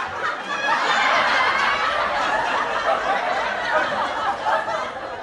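Loud laughter in reaction to a joke's punchline, tailing off near the end.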